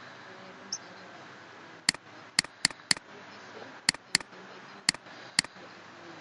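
Eight short, sharp clicks at uneven intervals, starting about two seconds in and ending near the end, over faint room hiss.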